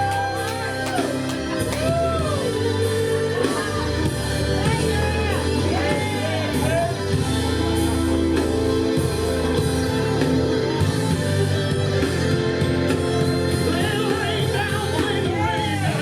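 Music: a song with a singer's voice sliding up and down in runs over a steady band accompaniment.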